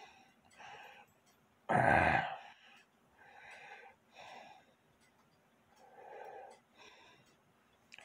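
A person breathing close to the microphone: a run of soft, noisy breaths about a second apart, with one much louder breath out about two seconds in. Faint small clicks come from handling small brass clock parts.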